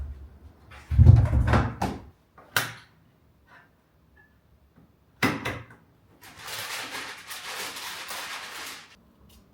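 Handling noises: a cluster of heavy thuds and knocks in the first two seconds, single sharp knocks a little later and about halfway through, then about three seconds of rustling or scraping that stops near the end.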